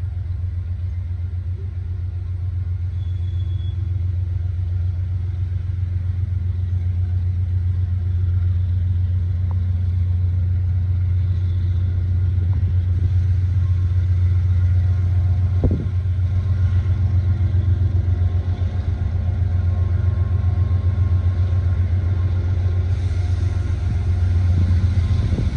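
Diesel freight locomotives approaching, a steady low engine rumble that slowly grows louder, with one sharp click about two-thirds of the way through.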